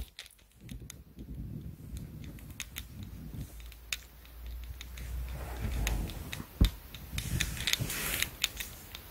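A Pomeranian scratching itself: scratchy rustling of paw through fur and against a quilted blanket, with scattered light clicks, busiest in the second half.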